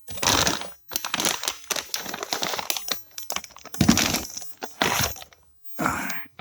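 Packing material crumpling and rustling in irregular bursts as a part is unwrapped and lifted out of a shipping box, stopping briefly twice.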